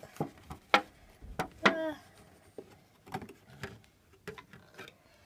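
Scattered light clicks and taps of a hard-plastic Schleich horse figurine being handled and lifted out of its advent-calendar tray.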